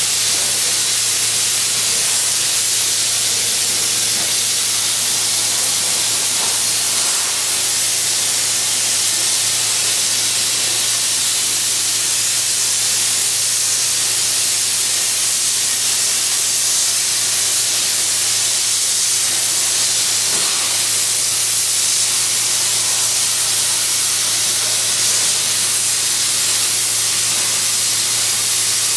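CNC plasma torch cutting metal plate: the arc and its gas jet give a loud, steady hiss, with a low steady hum beneath it.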